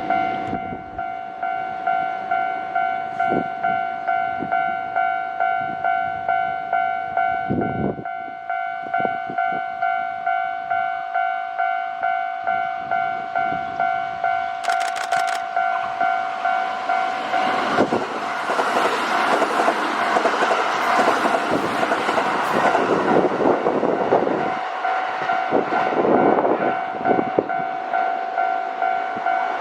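Japanese level-crossing warning bell ringing in a steady run of repeating electronic dings. From about 17 seconds in, a Kintetsu limited express train passes the crossing: a loud rush of wheels and rail knocks over the still-ringing bell, fading near the end.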